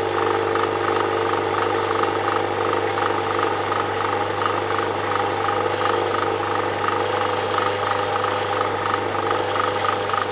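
Electric drill running steadily as its bit cuts a small pilot hole through a fibreglass panel and the aluminium panel clamped beneath it.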